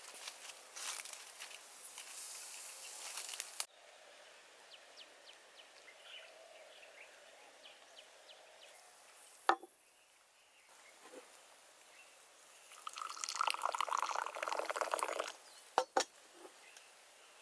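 Liquid being poured in short spells, broken by a couple of sharp knocks.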